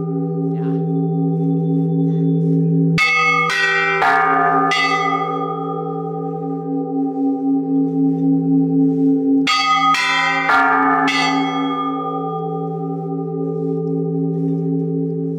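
Church bells ringing: two quick runs of four strikes about half a second apart, the second run some six seconds after the first, over a long, slowly beating hum from the bells ringing on.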